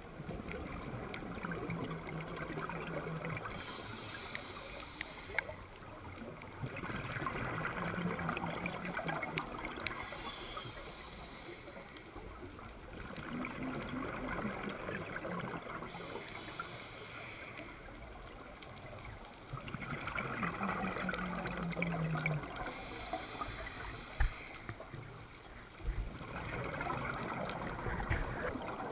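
Scuba diver breathing through a regulator underwater: a hissing inhale, then a gurgling rush of exhaled bubbles, repeating about every six to seven seconds.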